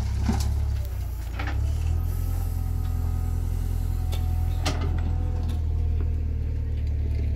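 Heavy diesel engine running steadily at low revs, a deep even hum, with a few scattered knocks and clanks.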